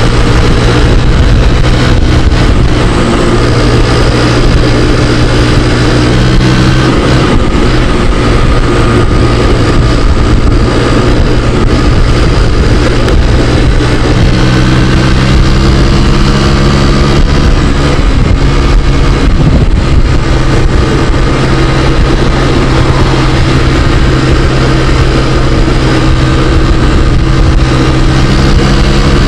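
Scooter engine running steadily while riding, its note shifting a few times as the throttle changes, with wind rumbling on the microphone.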